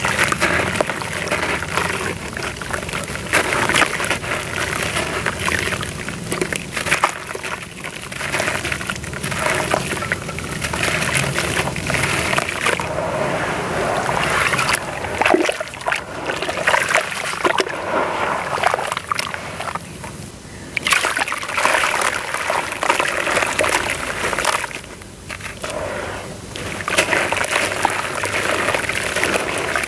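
A dry, crumbly lump of sand-cement mix being broken up by hand into a tub of muddy water: grains and clumps shower and patter into the water, with sloshing and splashing as the hands work and stir the water. The sound briefly drops away twice, about two-thirds of the way in.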